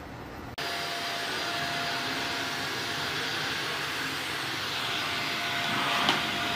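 A stick vacuum cleaner runs steadily: an even suction hiss with a thin constant whine. It cuts in abruptly about half a second in, and there is a brief click near the end.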